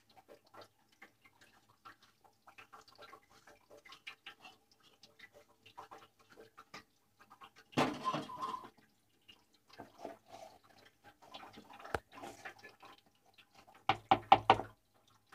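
Light scraping and ticking of a steel plate and a utensil against a plastic mixing bowl as dry sattu flour is tipped in and stirred through grated radish, with a louder bump about eight seconds in and a quick run of knocks near the end.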